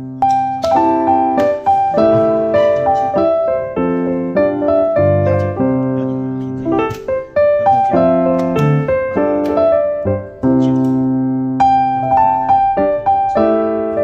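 Background piano music: a melody of struck notes over lower sustained bass notes.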